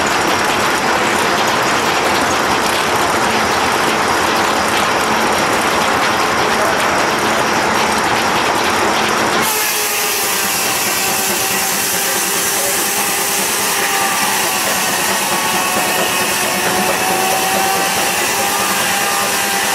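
Large circular sawmill blade running and cutting a log as the carriage feeds it through, a loud steady rasp. About halfway through the sound changes abruptly to a ringing whine with several steady tones over the machinery.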